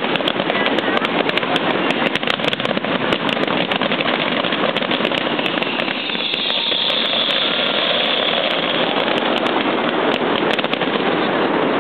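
Fireworks going off in a dense, continuous crackle of rapid pops, with a high hiss joining about halfway through for a few seconds.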